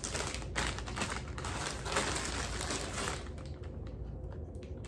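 Hands opening a small product package: rapid crackling and clicking of the packaging for about three seconds, then a few scattered clicks.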